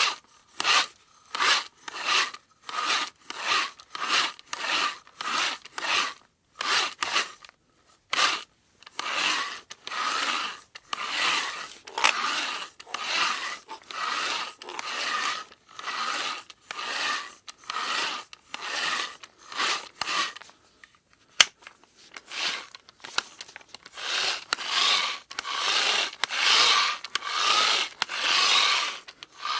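Manual hand drill boring, with a rhythmic rasping scrape on each stroke. The strokes are short and come about twice a second at first, then grow longer and run almost together from about eight seconds in. A single sharp click comes about two-thirds of the way through.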